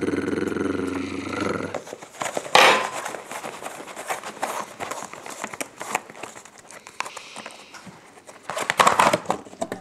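Crinkling and crackling of an aluminium foil takeaway tray as its crimped rim is bent back and the lid is pried off, with louder crackles about two and a half seconds in and again near the end. A steady tone with several pitches sounds for the first couple of seconds, then stops.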